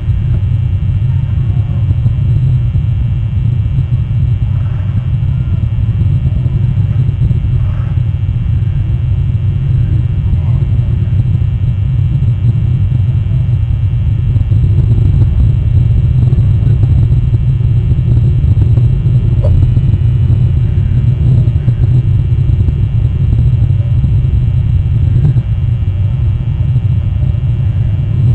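Steady low rumble of wind buffeting an outdoor nest camera's microphone.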